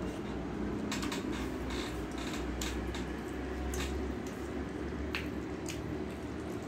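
Fingers mixing cooked rice with thin chicken curry on a steel plate: soft wet squishing, with scattered small sharp clicks as the fingers touch the plate.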